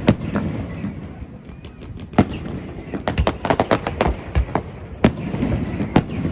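Fireworks display: sharp bangs of shells bursting, with a rapid string of crackling reports about three to four seconds in and single bangs on either side.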